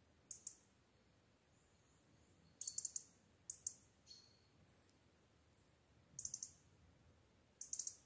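Small forest songbirds calling faintly: short, high chirps in quick clusters every second or so, with one thin whistled note near the middle. One bird gives 'chirik-chirik' chirps while another answers with single 'pik' notes.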